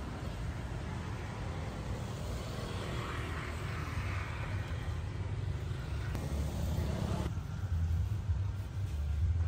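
Steady low rumble of a motor vehicle, growing heavier near the end, with a lighter hiss swelling and fading in the middle.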